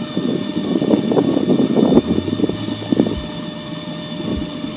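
Wind buffeting the microphone over water lapping and slapping against the side of a small inflatable boat, a loud uneven rushing with gusts.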